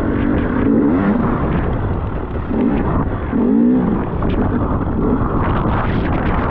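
Enduro motorcycle engine revving up and down in two bursts, over a heavy rumble of wind on the microphone.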